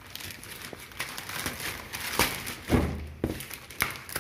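Plastic mailer bag rustling and crinkling as it is handled and cut open with scissors, with a few sharp clicks and a dull thump about two-thirds of the way in.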